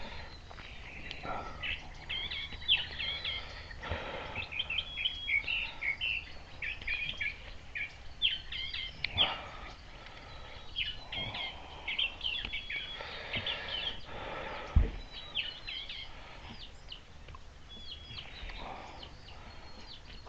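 Songbirds chirping repeatedly in short, high calls over a low steady hum. There are a few light knocks, with one sharp click about fifteen seconds in.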